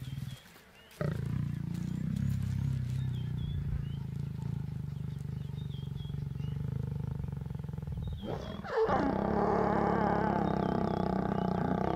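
A mating pair of lions growling: a low, rumbling growl, then about eight seconds in a louder, harsher snarling growl as the lioness bares her teeth.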